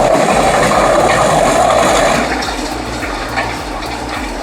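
Komptech Axtor 8012 shredder chewing through wood, a loud rushing, grinding noise that eases a little about two seconds in.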